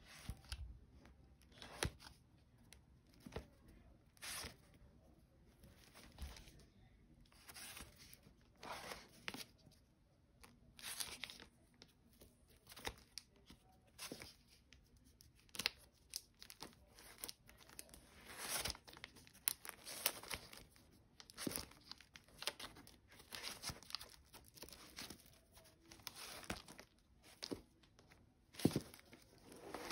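Vinyl LP jackets being flipped through one by one in a record crate: a string of short papery brushing and slapping sounds as the cardboard sleeves rub and fall against each other, irregular, about one or two a second.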